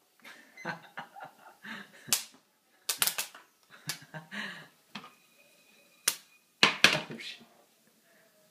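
Popcorn kernels popping in an uncovered frying pan: scattered sharp pops at irregular intervals, the loudest around three seconds in and again around seven seconds in.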